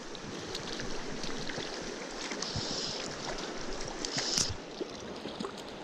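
Mountain stream running over rocks: a steady rushing hiss of water, with a brief louder rush about four seconds in.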